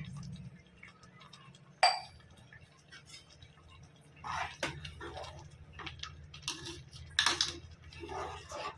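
A steel spoon clinking and scraping against a metal cooking pot while stirring thick haleem, with milk just added. There is a single sharp clink about two seconds in, and the stirring strokes come in from about halfway. A low steady hum runs underneath.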